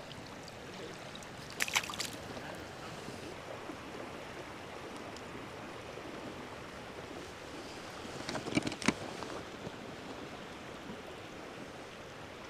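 Creek water running steadily around a wading angler, with two brief, louder bursts of sharp noise, about two seconds in and again near nine seconds.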